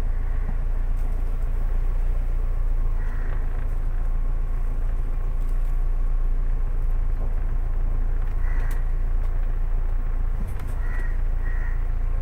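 Car engine running, a steady low rumble heard from inside the cabin as the car moves slowly through floodwater. A crow caws a few times over it, twice in quick succession near the end.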